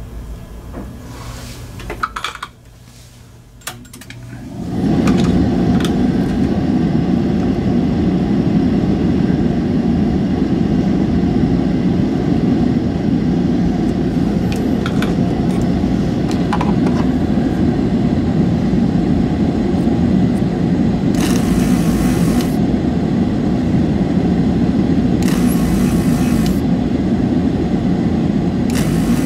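Desoldering work on a mouse circuit board: a few light clicks, then a steady electric motor drone, like a desoldering pump or bench fan, starts about five seconds in and runs on. Three short bursts of hiss come in the last third.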